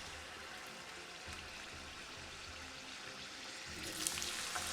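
Potatoes frying in hot vegetable oil: a steady sizzling hiss that gets louder and breaks into sharp crackles near the end.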